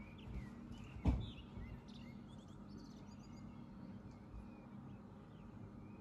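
Birds chirping faintly in short, scattered calls over a steady low room hum, with a single dull thump about a second in.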